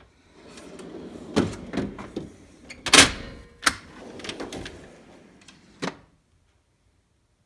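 Steel tool-box drawers sliding shut and open on their runners, a rolling sliding noise broken by several clunks, the loudest about halfway through as a drawer meets its stop.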